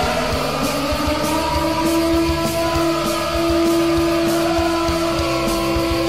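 Hard-rock goal song with electric guitar and a steady drum beat. A long held note slides up about a second in and then holds.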